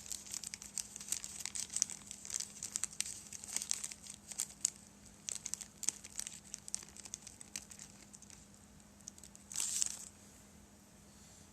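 Plastic bag crinkling as a small, delicate 3D-printed part is eased out of it, with dense rustling that thins out and ends in one short rustle near the end.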